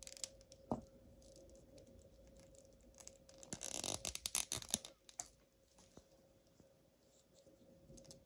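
Faint clicks and scrapes of hard plastic action-figure parts being handled, with a burst of clicking and rubbing a little past three seconds in as a head is pushed onto the figure.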